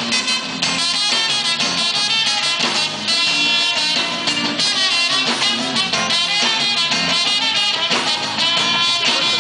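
Live samba-rock band playing an instrumental passage with brass and guitar over a steady beat.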